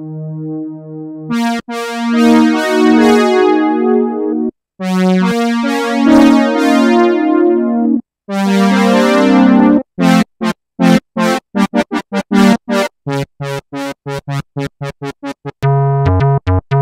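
Arturia SynthX V software synthesizer, an emulation of the Elka Synthex, playing brass-and-winds presets: held chords for the first ten seconds or so, broken by two short pauses, then quick short staccato notes, about three or four a second, and held notes again near the end.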